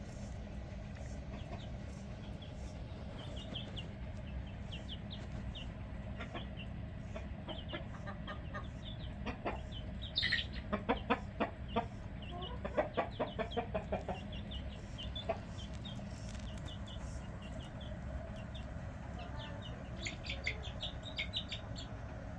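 Chickens clucking, with a louder run of quick cackling calls about ten seconds in, over a steady low rumble.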